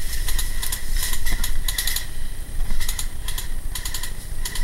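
Airsoft guns firing in short bursts of rapid clicks, several bursts one after another.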